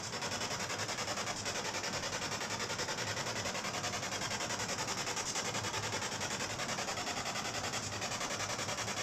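Ghost-hunting spirit box sweeping through radio stations: steady rasping static chopped into fast, even pulses several times a second.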